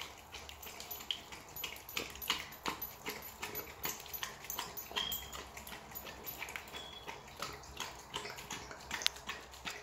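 A Rottweiler lapping raw egg and licking and chewing at a raw chicken drumstick on a foam tray: a steady run of irregular wet smacks and clicks, with two brief high squeaks near the middle.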